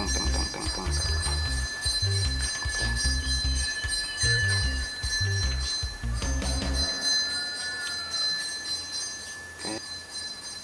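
Background music with a regular bass beat over steady high sustained tones; the beat drops out about seven seconds in.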